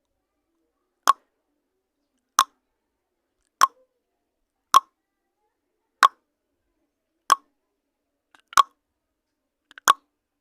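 Countdown timer sound effect: a short, sharp pop repeating evenly about every 1.2 seconds, eight times, with silence between.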